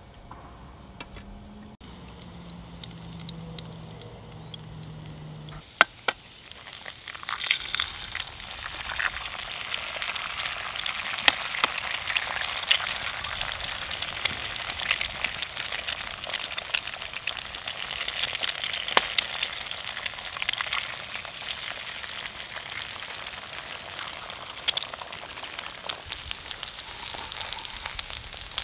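Sausages and eggs sizzling and crackling in a frying pan over a Swedish log fire. The sizzle starts suddenly about six seconds in, right after a sharp click, and stays loud from then on.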